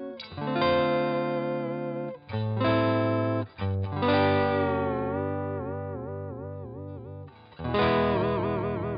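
Fesley ST electric guitar strummed in chords that are left to ring, about four times, with the tremolo arm pushed so the pitch wavers up and down, most clearly in the second half.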